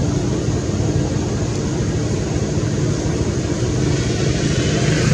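A steady low engine-like rumble with a faint hum, unchanging in level.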